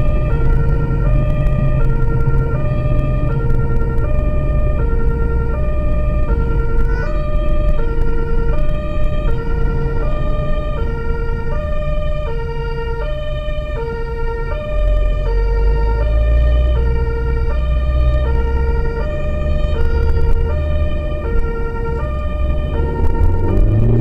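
German two-tone emergency siren (Martinshorn) on a medical transport vehicle during a blue-light run, heard from inside the cabin. It alternates steadily between a high and a low tone, about one high-low cycle a second, over the low rumble of the vehicle's engine and tyres.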